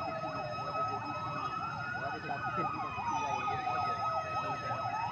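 Several emergency sirens, from fire engines, sounding together. A slow wail glides down and back up over about four seconds, beneath a fast, repeated up-down yelp and a steady high tone.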